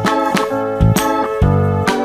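Background music: a keyboard-led instrumental with a steady beat.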